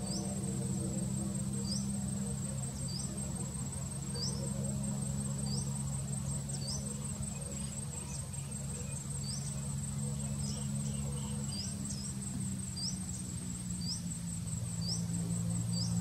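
Insects chirring steadily at a high pitch with a fine fast pulse, like crickets, with a short rising chirp repeated about once a second. A low steady hum lies underneath.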